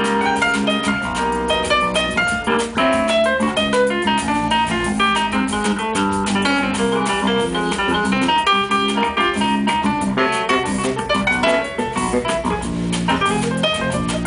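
Live band with grand piano, electric string instrument and drum kit playing an instrumental passage: a fast plucked-string melody over piano chords and light drums.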